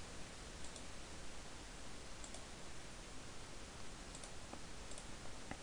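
A handful of faint computer mouse clicks, scattered irregularly, over a steady low background hiss.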